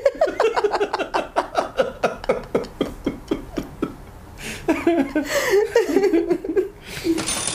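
People laughing at a pun: a quick run of ha-ha pulses for the first few seconds, then more laughter after a short lull.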